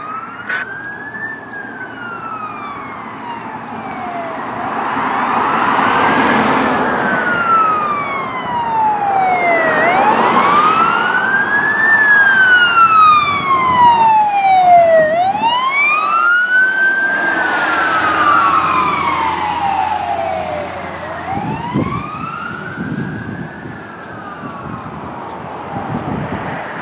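Fire engine siren on a slow wail, its pitch rising and falling in long cycles of about five seconds each. It grows louder as the truck approaches, is loudest about halfway through, then fades as it moves off. Near the end, the tyre and engine noise of following cars comes through.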